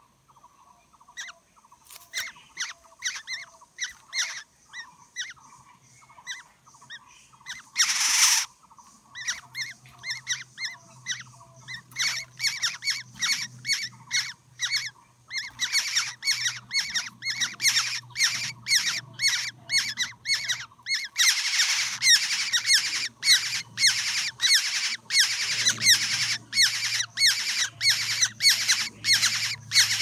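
Black-hooded oriole nestlings begging in the nest, a rapid string of short, squeaky calls. The calls come faster and louder as the begging builds, and there is one louder harsh squawk about eight seconds in.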